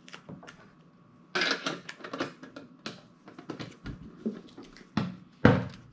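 Handling noise as the contents of a Pokémon Hidden Fates tin are taken out: scattered clicks and rustles of packaging and cards, with a brief rustle about a second and a half in and a sharp knock near the end.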